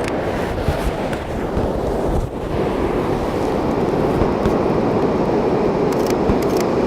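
Steady rush of ocean surf washing up the beach, mixed with wind on the microphone, slowly getting a little louder.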